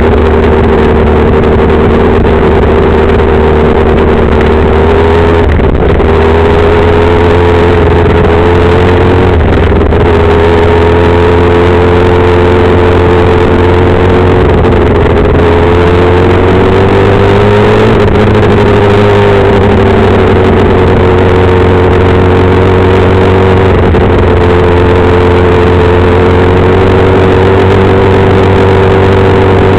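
Compact speedcar engine running hard at high revs, heard loud from the cockpit with road and wind noise. The revs dip briefly every few seconds and climb again.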